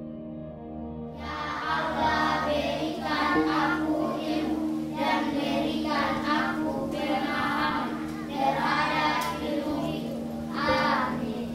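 Soft background music with steady held tones, joined about a second in by a group of children singing, in phrases that stop just before the end.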